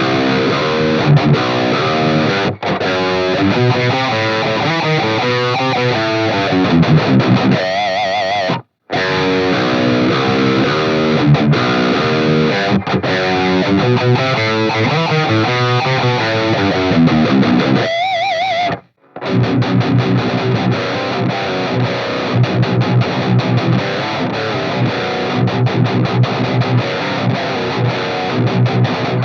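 Extended-range electric guitar on a high-gain distorted metal tone, in a pickup tone test. It plays the same riff twice, each time ending on a held note with vibrato, with a short break after each. It then moves into a fast, palm-muted chugging riff.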